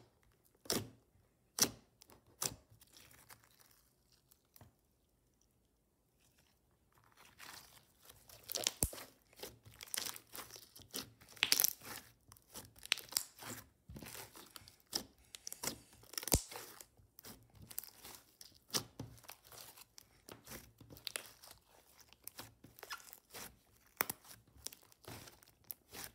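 Hands kneading and stretching glittery blue slime, giving a run of sticky pops and crackles. A few scattered pops open it, then a quiet pause of a few seconds, and from about seven seconds in the crackling is dense and steady.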